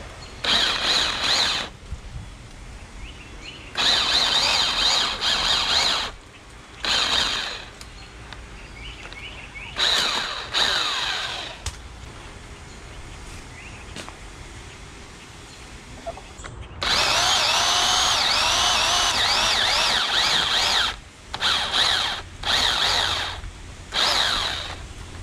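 Portland electric pole saw running in about eight short bursts of a second or two, with one longer run of about four seconds in the second half: a high motor-and-chain whine that starts and stops as the trigger is pulled and released, its pitch dipping and rising as the chain bites into a tree limb.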